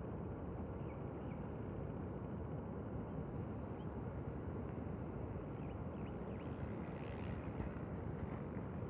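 Steady outdoor background noise, a low even rush, with a few faint short high chirps scattered through it.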